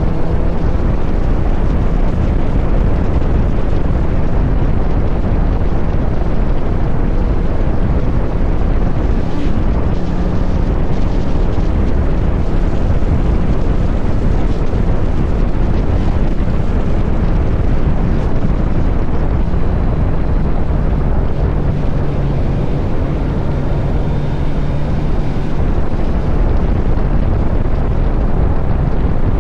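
Motorcycle riding sound: heavy wind buffeting on the microphone over the Kawasaki Z900 SE's inline-four running through an SC Project CR-T exhaust, at a fairly steady cruise with small changes in engine pitch.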